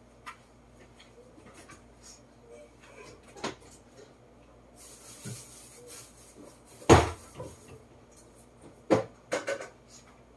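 Kitchen handling during cooking prep: scattered light clicks and knocks of utensils and containers being set down and moved, with a brief rustle about five seconds in and the loudest knocks about seven and nine seconds in.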